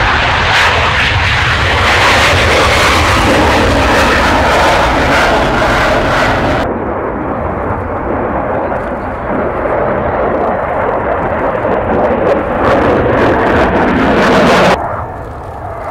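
F-4 Phantom II's twin J79 turbojets at takeoff power, a loud, dense jet noise. About six and a half seconds in the sound changes abruptly to the Phantom in flight during a display manoeuvre: a duller jet noise that swells and then cuts off suddenly near the end.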